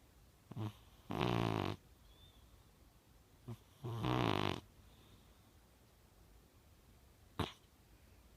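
Young blue British Shorthair cat snoring: two snores about three seconds apart, each lasting about half a second with a short click just before it, and one more brief click near the end.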